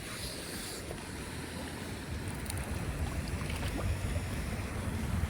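Wind rumbling on the microphone at the water's edge, with a few faint light clicks.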